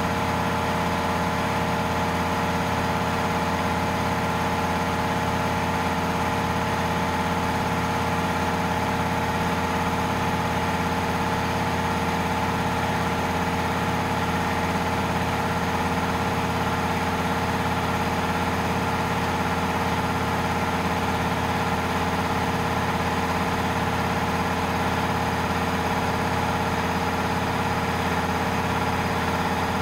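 WALTER GK 880 belt-driven piston air compressor, electric motor and pump running steadily under load while it fills its 500-litre tank.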